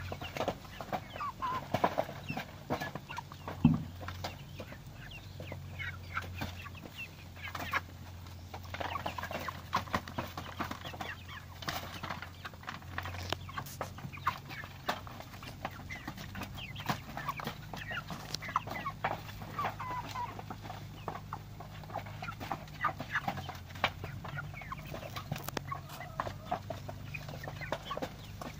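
A flock of naked-neck hens clucking and chattering in short calls, mixed with many short sharp taps, with one louder knock a few seconds in.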